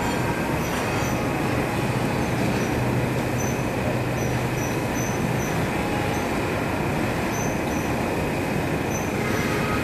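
Hydraulic oil press pressing black sesame oil, its machinery running with a steady, loud mechanical noise. A low hum under it drops away about five and a half seconds in.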